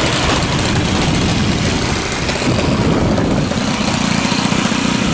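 Nitro glow engine of a model Edge 540 plane running, rough and uneven, settling into a clear steady tone near the end.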